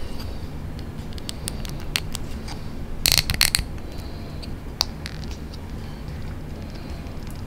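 Small hard-plastic clicks and snaps as a capsule figure is pressed onto the peg of its clear plastic display stand, with a quick run of louder clicks about three seconds in and one more sharp click near five seconds.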